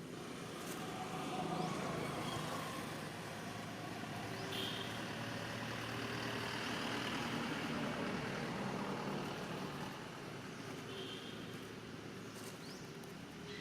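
A motor vehicle's engine passing by, its noise swelling over the first few seconds, holding, then easing off near the end. A few faint short high chirps sound over it.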